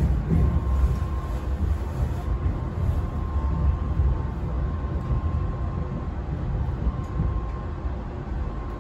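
Interior running noise of a JR Hokkaido 733 series electric commuter train in motion: a steady low rumble of wheels on rail with a faint steady hum above it, easing off slightly toward the end.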